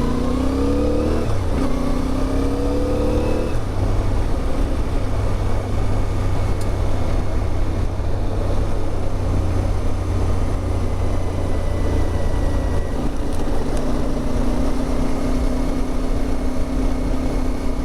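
CFMOTO 450MT's parallel-twin engine pulling away and accelerating, climbing in pitch with a gear change about a second in, then running at a steady cruise under a heavy rush of noise.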